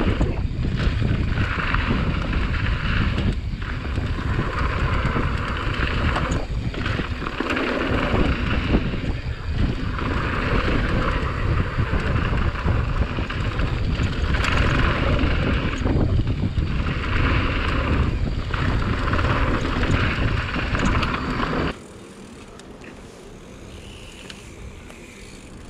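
Wind buffeting the camera microphone and tyres rolling over a dirt and gravel trail on a fast mountain-bike descent, a loud steady rush with a hiss that comes and goes. Near the end it cuts suddenly to much quieter rolling on paving stones.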